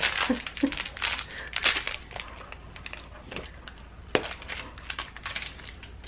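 Crinkle-filled plush dog toy rustling and crinkling as it is handled while its tag is worked off, with a sharp click about four seconds in.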